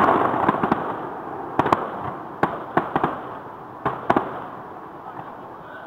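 Fireworks shells bursting: a loud bang right at the start, then a string of sharp bangs over a crackling haze for about four seconds, thinning out near the end.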